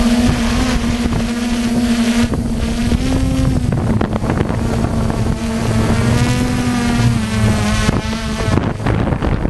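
Motorboat engine running at a fairly steady pitch.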